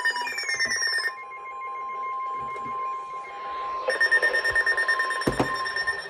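Emergency-alert alarm tones: falling sweeping tones fade out at the start over a fast-pulsing, buzzy alarm tone. About a second in it gives way to a steady single tone, and the pulsing alarm returns about four seconds in. A short knock comes about five seconds in.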